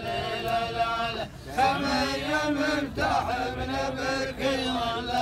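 A group of men chanting a rajaz verse together in long, drawn-out held notes, with a short break about a second in.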